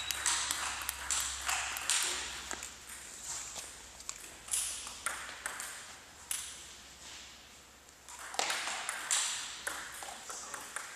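Table tennis balls clicking off paddles and the table in quick, irregular pops, each with a short echo in a large gymnasium. The clicks come thicker in the last few seconds as a rally gets going.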